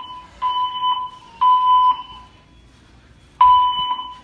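Fire alarm speaker strobes (System Sensor SPSR) sounding the temporal-three evacuation tone, a steady high beep about half a second long repeated in sets of three. Two beeps end one set, a pause of about a second and a half follows, and the first beep of the next set starts near the end. This is the building's evacuation signal, played between the spoken evacuation messages.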